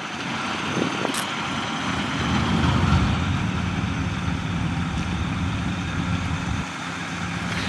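Snow blower mounted on the front of a van running steadily as it throws a plume of snow, a continuous engine drone under a steady rush of noise. A single sharp click about a second in.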